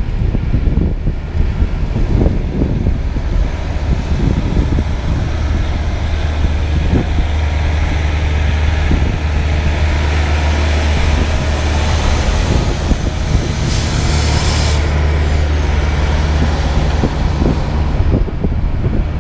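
Freightliner semi-truck's diesel engine running at low speed as it pulls a refrigerated trailer past, a steady low drone that grows louder as the rig comes closer. A hiss lasting about a second comes about fourteen seconds in.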